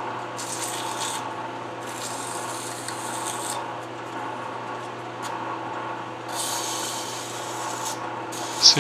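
Emery cloth rubbing against the edge of a small metal ring spinning in a lathe, in several separate passes of hiss over the lathe's steady motor hum.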